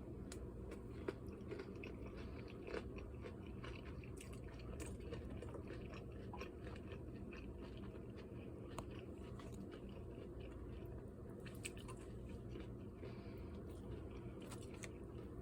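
A person chewing crunchy fried food, with scattered faint crunches.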